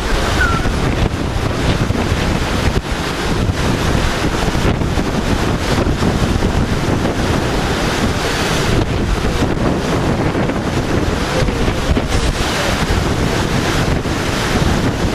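Loud, steady rushing and churning of water stirred up by the SS Badger's propeller wash against the dock, with wind buffeting the microphone.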